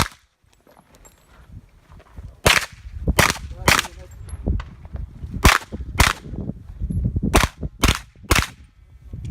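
JP Rifles GMR-15 pistol-caliber carbine firing a string of eight shots during a USPSA stage, mostly in pairs about half a second apart: double taps on each target.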